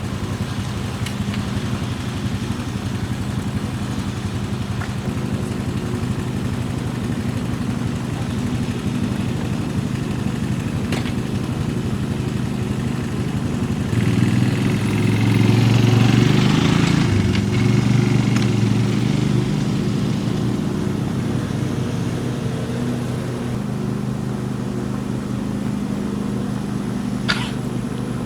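A vehicle engine running steadily, working harder and louder for a few seconds around the middle before settling back, with a brief high squeak near the end.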